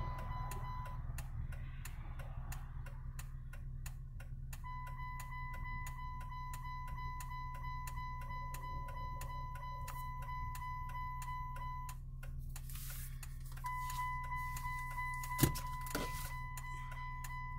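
Even, rapid ticking with a steady high electronic tone that cuts out twice and comes back, over a constant low hum; one sharp click about fifteen seconds in.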